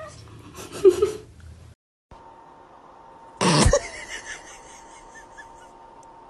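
A husky puppy makes one short, loud noise about three and a half seconds in, over a faint steady hum with a thin steady tone. Before it there is a loud short sound about a second in, then a moment of dead silence.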